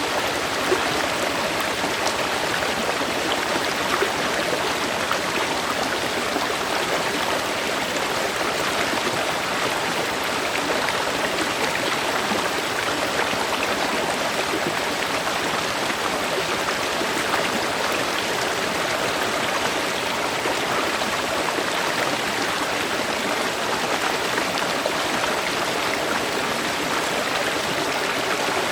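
Stream of river water flowing steadily over rocks, a dense even rush of water with small splashes throughout.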